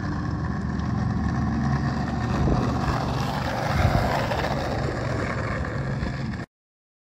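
Skateboard wheels rolling over a coarse exposed-aggregate path, a steady rumble that cuts off abruptly near the end.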